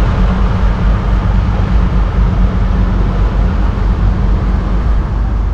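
Charter fishing boat's engine running steadily under way while trolling, a low drone, with sea water rushing along the hull.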